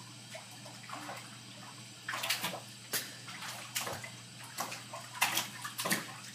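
Bare feet splashing and sloshing in shallow water in a jetted tub, as a series of irregular splashes starting about two seconds in.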